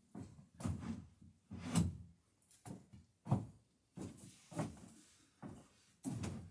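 A series of short, irregular knocks and scraping strokes from hand work on the wooden dory's planking, about one to two a second.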